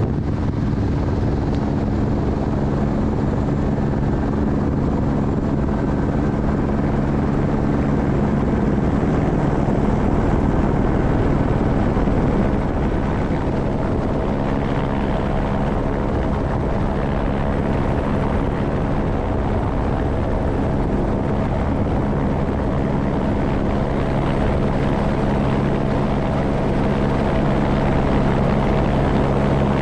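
Airbus AS350 B3 Esquilo helicopter in flight: a steady, loud drone of turbine and rotor with a low hum of engine tones. The hum thins for a few seconds about a third of the way in, then comes back.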